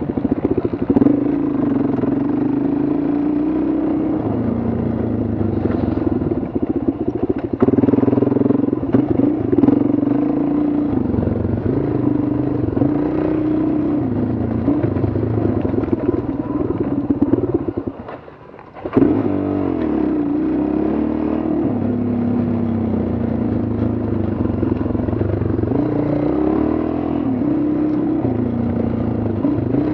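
Dual-sport motorcycle engine running under changing throttle on a dirt trail, its note rising and falling over and over, with occasional knocks as the bike goes over bumps. About two-thirds through, the engine sound drops away for about a second, then revs back up.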